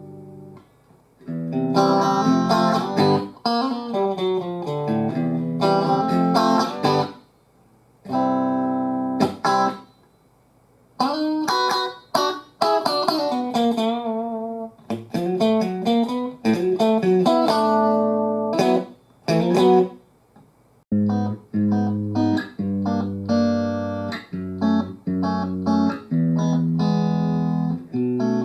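Electric guitar played through a Fender Super Champ XD, a 15-watt tube amp with two 6V6GT power tubes and a 12AX7 preamp tube. Single-note phrases with bends and vibrato come in short bursts with pauses between them. From about two-thirds of the way through, a rhythmic chordal part takes over.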